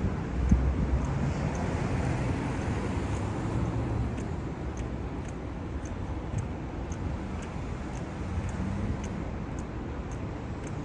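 City street traffic: cars running and passing on the street, with a low rumble loudest about half a second in. A faint regular ticking, about two a second, runs beneath it.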